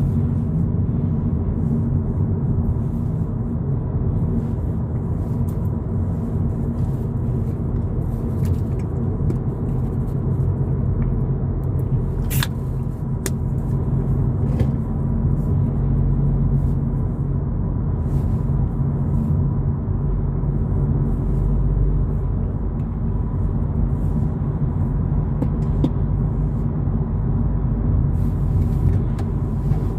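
Steady low rumble of tyre, road and engine noise from a 2022 Volkswagen Polo GTI on the move. Two short sharp clicks come about twelve and thirteen seconds in.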